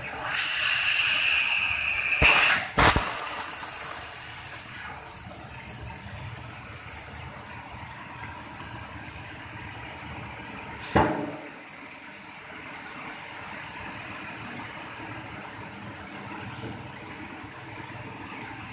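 EMC 1530 Fi fiber laser cutter cutting stainless steel with a compressed-air assist jet, a steady hiss that is loudest for the first few seconds and then quieter. Sharp knocks come twice about two and a half seconds in and once about eleven seconds in.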